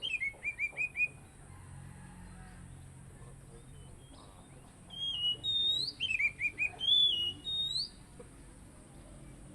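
Oriental magpie-robin (kacer) singing in two bursts: a rising whistle and a quick run of four or five short falling notes right at the start, then a longer phrase of whistles and falling notes about five seconds in.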